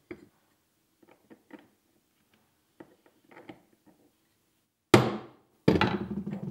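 Metal parts handled on a wooden workbench: light clicks and knocks as a disc is fitted into a cast aluminium plate, then two sharp metallic knocks under a second apart near the end, the second ringing and rattling as it dies away.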